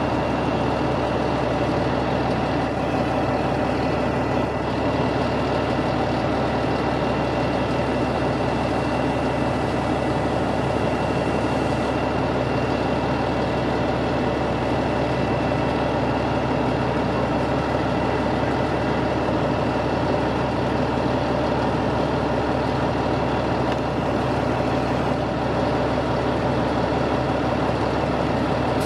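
Fire engine's diesel engine running steadily at the fire scene, with a faint high whine over it, the apparatus set up with a hose line laid out.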